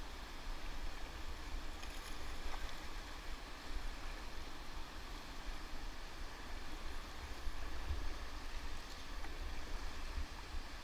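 Whitewater river rushing steadily, with a heavy low rumble underneath.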